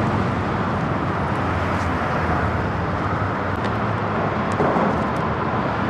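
Steady distant road-traffic rumble, an even wash of noise with no single vehicle standing out.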